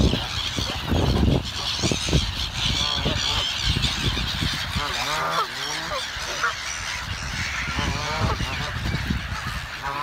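A flock of Canada geese honking, with many short calls overlapping, over a dense high chatter from a large flock of gulls. Wind rumbles on the microphone during the first couple of seconds.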